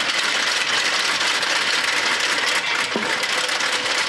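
Macadamia nut dehusker running with a dense, steady mechanical rattle as whole nuts in their green husks are fed in and stripped of the leathery outer husk.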